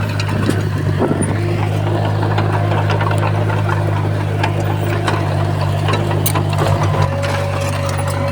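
Komatsu bulldozer's diesel engine running steadily, with many short clicks and clanks scattered over the hum.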